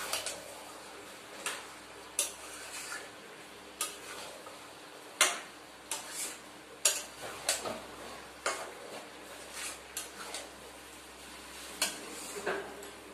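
A metal spoon stirring a thick jackfruit and chickpea curry in a steel pan, clinking and scraping against the pan every second or so.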